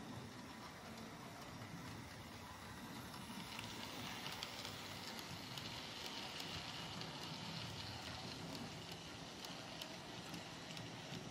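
OO-gauge model goods train, a Bachmann EFE Rail J94 0-6-0 saddle tank hauling a rake of private-owner wagons and a brake van, running on the layout: a steady rattle of small wheels on the track with faint clicks. It grows louder for several seconds in the middle as the wagons pass closest.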